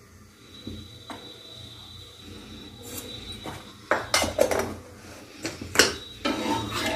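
Kitchen utensils clinking and knocking against metal a few times, then a wooden spatula starting to scrape across the tawa near the end.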